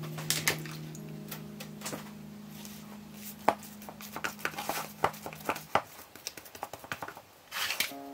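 Hands punching down soft bread dough in a plastic tub: irregular squishes and slaps, with clicks and knocks from the plastic container. Soft background music with long held notes runs underneath and stops about six seconds in.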